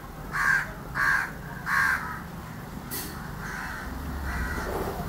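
A crow cawing: three loud caws in quick succession, then a few fainter caws about halfway through.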